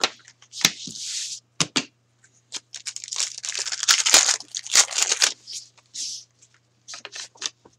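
A pack of hockey trading cards being torn open by hand. There are scattered clicks and rustles, then a couple of seconds of dense crinkling and tearing of the wrapper from about two and a half seconds in, thinning to light rustles of the cards being handled near the end.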